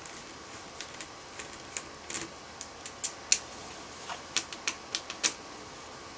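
Irregular small clicks and taps of hands and a screwdriver working on a Version 3 airsoft gearbox, with a sharper click about three seconds in and another near the end.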